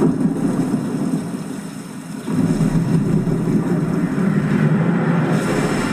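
Loud, dense storm rumble, a cinematic nature's-fury sound effect. It fades about a second and a half in, then surges back abruptly just after two seconds.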